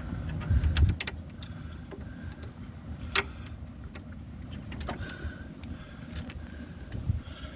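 Scattered metallic clicks and knocks of hand tools and parts being handled, one sharper knock about three seconds in, over a low rumble.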